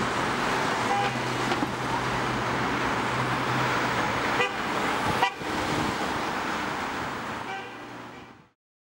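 City street traffic: cars driving past with a steady low engine hum, and two short sharp sounds about four and a half and five seconds in. The sound fades out near the end.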